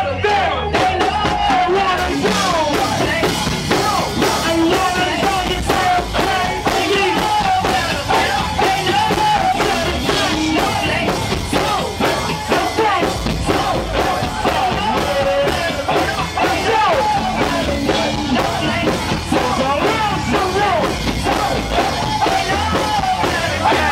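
Live go-go band music: a steady, dense groove of drums and percussion under a lead vocalist on a microphone, with yells over it.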